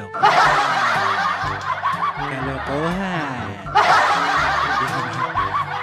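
Canned crowd laughter in two bursts, the second starting just under four seconds in.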